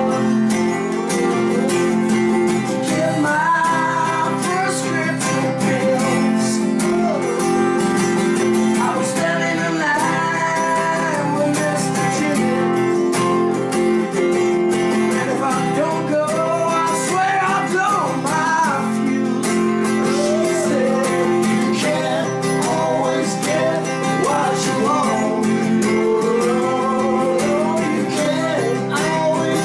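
An acoustic guitar and an electric guitar playing a song together, the acoustic strummed.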